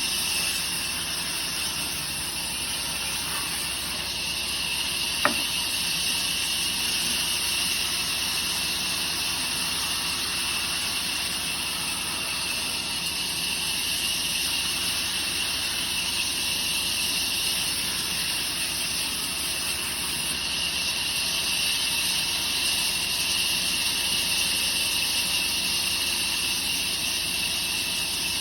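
Steady high-pitched hiss of a woodworking machine running in a workshop, with one sharp click about five seconds in.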